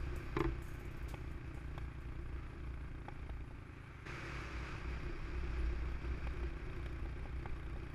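150cc GY6-engined Tao Tao scooter running steadily at cruising speed, heard fairly faintly under a low rumble of wind on the camera microphone.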